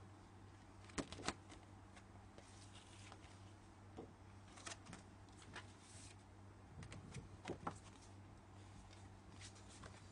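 A sheet of card being handled: scattered light taps and flicks of stiff paper, the sharpest pair about a second in, over a steady low hum.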